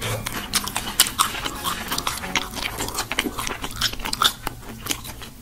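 Close-miked eating: crunchy bites and chewing, with many sharp crackling crunches several times a second.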